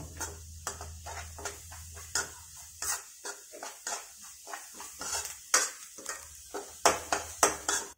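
A spoon scraping and knocking in a non-stick pan as fried onions and spice powders are stirred, in short irregular strokes, with louder scrapes near the end. The masala is being stirred until the raw smell of the spice powders cooks off.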